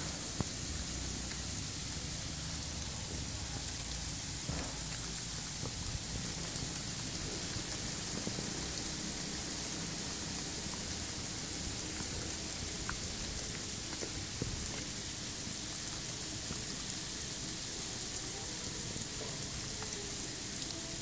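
Very heavy sleet falling: a steady hiss of ice pellets striking the snow-covered surfaces, with scattered small ticks of single pellets.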